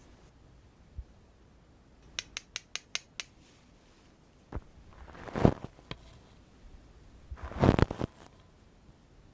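Makeup items handled close to the microphone: a quick run of about six clicks, then two short rubbing, scraping sounds.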